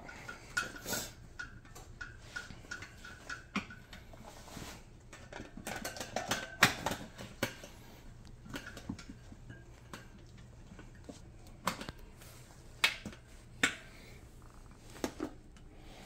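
Steel tire irons clinking and knocking against a dirt bike wheel rim as the tire bead is levered back on over the rim lock: scattered sharp metallic clicks, a quick run of them about six to seven seconds in and single knocks near the end.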